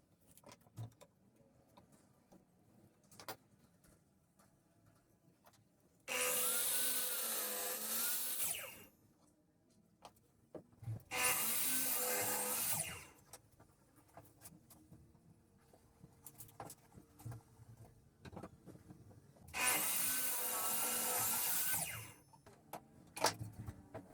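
A woodworking power tool running through wood in three bursts of two to three seconds each, its motor pitch wavering under load, with light knocks of wood being handled between the bursts.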